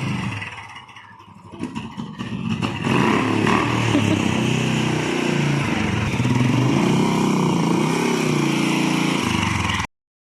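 Motor vehicle engine running and revving, its pitch rising and falling as it pulls away; the sound cuts off suddenly near the end.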